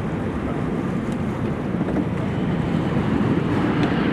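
Aircraft jet engine noise, a steady rush growing slightly louder toward the end, mixed with wind buffeting the microphone.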